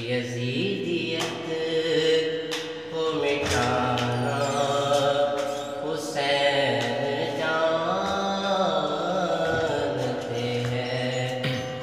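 A man singing a manqabat, an Urdu devotional praise song, in long held lines that bend and glide in pitch.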